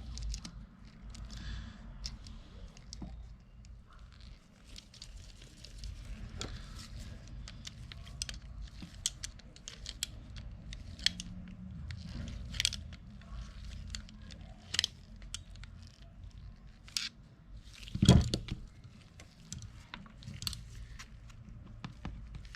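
Spinning fishing reel and small parts being handled and reassembled: irregular clicks, taps and scrapes of metal and plastic, with one louder knock about 18 seconds in.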